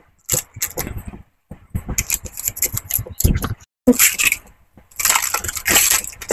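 A chocolate bar's gold paper wrapper and inner aluminium foil are peeled open and crumpled by hand: irregular crinkling and crackling, densest and loudest near the end as the foil is pulled open.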